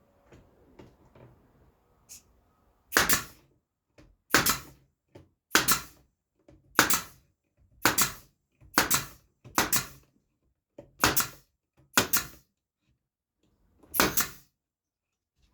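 Nails being driven into wooden fence picket boards: about ten sharp impacts, roughly one a second, starting about three seconds in, with a longer gap before the last.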